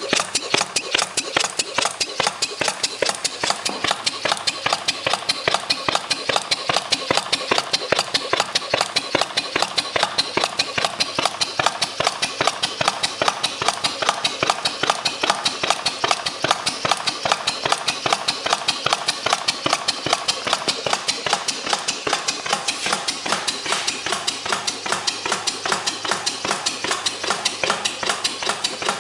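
1883 Crown pumping engine, a flame-ignition, non-compression gas engine with a spool valve, running steadily on a hydrogen-propane illuminating-gas mix. It makes a rapid, even clatter of mechanical clicks and knocks.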